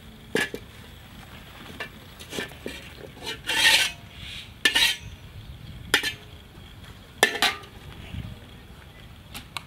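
A metal spatula and an iron wok clanking and scraping: a string of sharp metallic clinks and knocks about a second apart, with one longer scrape near the middle.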